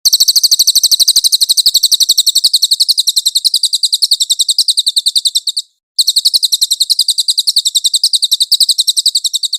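Recorded song of the cililin, a songbird: a fast, very even trill of high, sharp chirps at about ten a second. It breaks off briefly about six seconds in, then resumes at the same pace.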